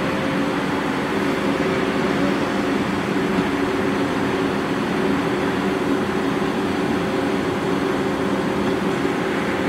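Steady mechanical drone of car wash machinery, an even rushing noise with a constant low hum under it.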